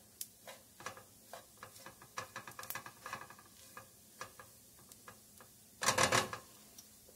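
A utensil stirring flour-coated vegetables in butter in a pot: scattered light ticks and scrapes against the pot, with a louder clatter about six seconds in.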